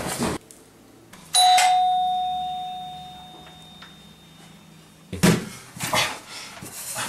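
A single doorbell chime strikes once and rings out, fading away over two to three seconds. Near the end come a few knocks and rustling.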